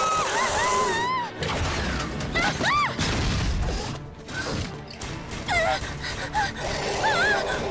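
Animated sound effects: a girl's frightened cry in the first second, then the whirring and clanking of a robot dinosaur's mechanical joints, over background music.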